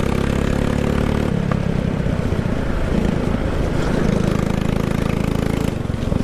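Go-kart engine running on the track. Its note holds steady, turns uneven about a second in, settles again and dips briefly near the end.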